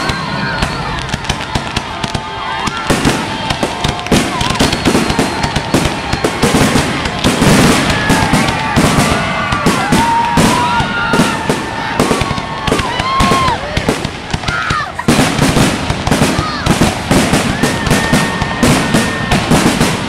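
Fireworks finale: aerial shells bursting in rapid succession, a dense run of bangs and crackling, with high gliding tones rising and falling over them. There is a brief dip about fourteen seconds in before a final heavy barrage.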